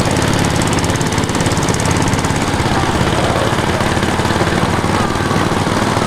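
Small river boat's engine running steadily, a loud, fast, even chugging beat.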